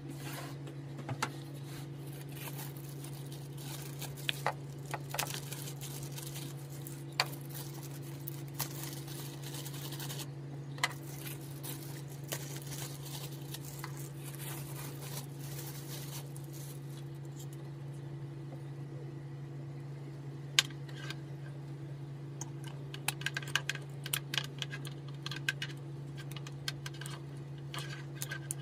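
Plastic bags rustling, and plastic charger plug adapters clicking as they are set down on a table and fitted onto the power adapter, over a steady low hum. The clicks come thickest near the end.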